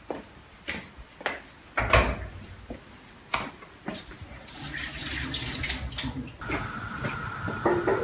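Tap water running into an aluminium pot in a stainless steel sink, with several sharp knocks of the pot against the metal. Near the end a steady high hum sets in.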